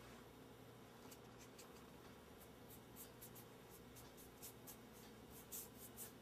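Faint, quick strokes of a dry brush dusting petal dust onto a gumpaste flower, sparse at first and coming several times a second in the second half.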